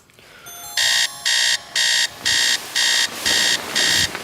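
Electronic alarm clock going off: a rapid, even series of loud, high beeps, about two a second, starting just under a second in.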